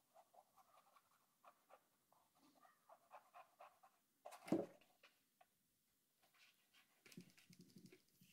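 Faint, irregular scrubbing strokes of a paintbrush dabbing acrylic paint onto canvas, with one louder knock about halfway.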